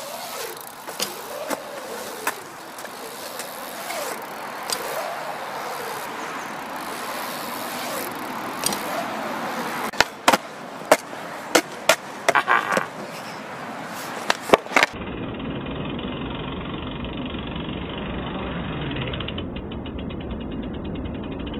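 BMX tyres rolling on a concrete bowl, a hum that rises and falls in pitch as the rider speeds up and slows through the transitions. Near the middle come a run of sharp clacks and knocks. Then the sound turns suddenly duller and steadier.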